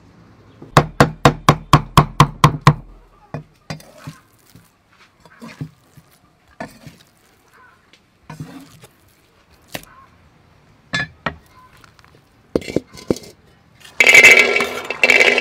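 A large knife chopping raw meat on a round wooden chopping block, about ten quick even strokes over two seconds, followed by scattered single knocks. Near the end, green peas pour onto a metal tray with a dense rattling clatter.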